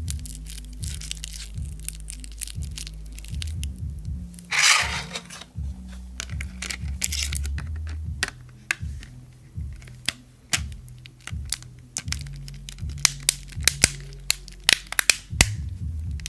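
Background music with a low bass line, over a run of sharp plastic clicks and clatters from handling laptop parts. There is one louder rustling scrape about four and a half seconds in, and a quick string of clicks near the end.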